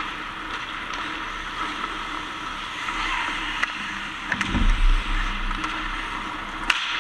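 Ice hockey play: a steady hiss of skates scraping the ice, with a few sharp stick-and-puck clicks and a low thud about four and a half seconds in.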